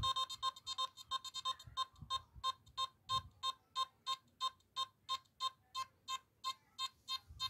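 Nokta Makro Simplex metal detector, fitted with an SP35 coil, sounding a short, high target beep each time a buckle is swept past the coil at roughly 11 to 14 inches. The beeps come about three a second.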